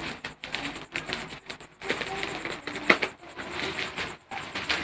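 Plastic bubble wrap crinkling and crackling as it is handled and pulled open, with a sharp crackle about three seconds in.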